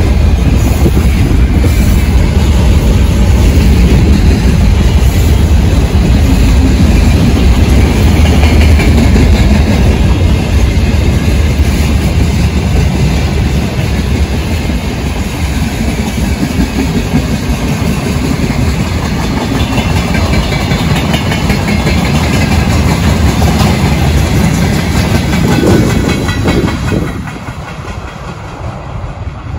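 Freight train wagons rolling past at close range: steady clickety-clack of wheels over the rail joints over a low rumble. The noise drops off sharply near the end.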